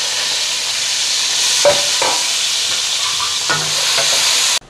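Sliced onions sizzling steadily in hot oil in an aluminium pot, stirred with a wooden spoon that knocks against the pot a few times. The sizzle cuts off suddenly near the end.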